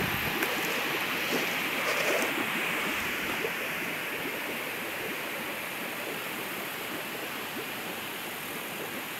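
Steady rushing of water at the fish tanks, with brief splashing and rustling from the dip net in the first couple of seconds. The rushing eases slightly toward the end.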